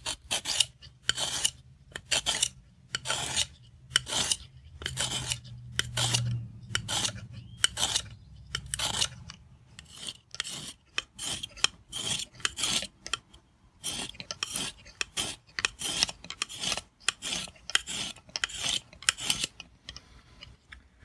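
Oiled medium Arkansas sharpening stone on a Smith's guided-rod kit, drawn in repeated strokes along a pocket knife's edge: a quick rasping scrape, about two to three strokes a second, with a couple of short pauses.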